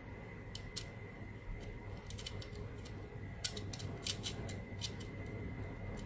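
Small, irregular clicks and ticks from a plastic rotary coaxial cable stripper being handled as its blade-adjust screw is turned, the blade at the end of its travel.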